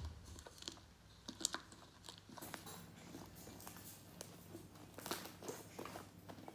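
Homemade slime being squeezed and stretched by hand, giving faint, irregular crackling and popping clicks.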